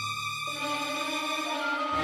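Instrumental background music with held notes; the chord changes about half a second in.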